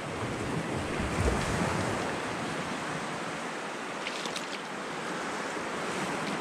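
Shallow surf washing over a sandy beach: a steady hiss of breaking waves, with wind rumbling on the microphone that swells briefly about a second in.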